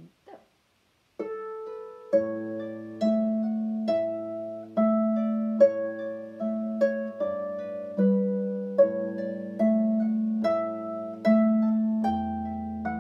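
Irish lever harp played with both hands: a slow, gentle tune in D major, plucked melody notes about one a second over ringing lower notes, starting about a second in.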